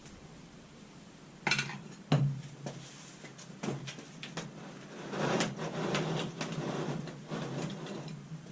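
Metal clanking and scraping from hands and tools working on a battery module's casing: two sharp knocks about a second and a half in, scattered smaller clicks, and a longer scrape a few seconds later.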